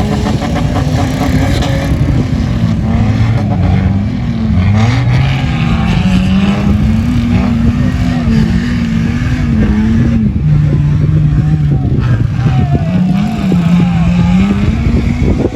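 Four-wheel-drive SUV engine revving up and down repeatedly while driving in desert sand, its pitch rising and falling over several seconds with a steady rumble underneath.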